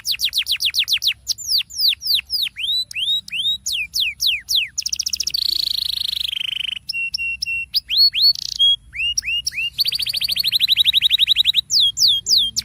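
Canary singing a fast, continuous song made of repeated phrases: runs of quick downward-sweeping notes, rapid trills and short held whistles, switching phrase every second or two. It is a lure song played to prompt other canaries to sing.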